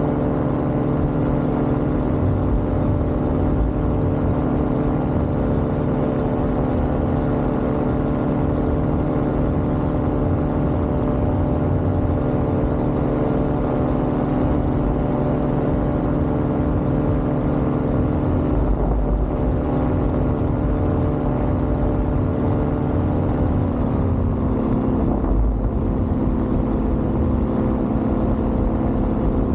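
Paramotor trike's engine and propeller running steadily in flight, a continuous droning hum that drops slightly in pitch about 23 seconds in.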